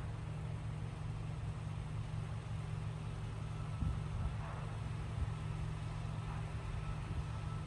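Steady low engine hum, like a vehicle idling, under a faint even outdoor hiss, with a few soft low bumps about four seconds in.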